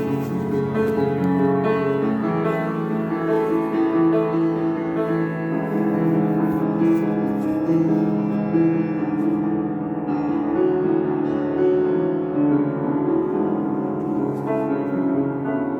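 Background music: a gentle piano piece with sustained, slowly changing notes.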